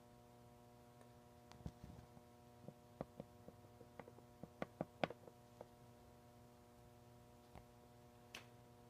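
Faint, steady electrical hum, with scattered light clicks and taps, several close together about five seconds in.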